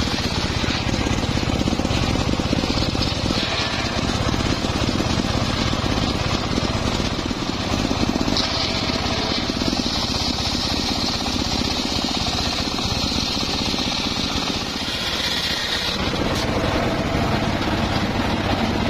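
Homemade table circular saw running and cutting through a hardwood log, the blade's steady noise over its drive motor, with a higher whine from about eight to sixteen seconds in.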